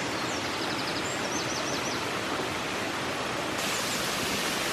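Waterfall and the stream beside the path rushing steadily: an even hiss of falling water.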